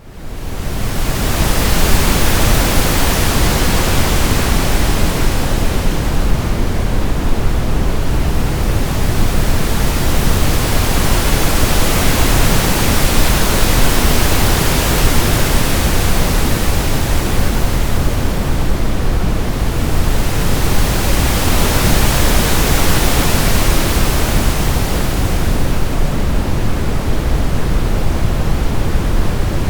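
Synthetic brown noise layered with pink noise, a steady full hiss with a deep rumble under it. The upper hiss slowly swells and fades every several seconds. It fades in over the first second or two.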